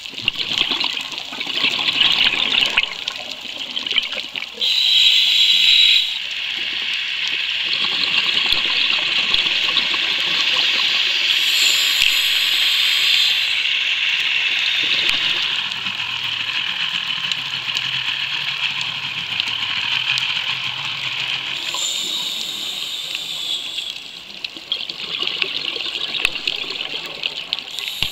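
Underwater sound of a scuba diver's breathing: exhaled bubbles from the regulator gushing past the camera housing in a few separate bursts, over a steady watery hiss.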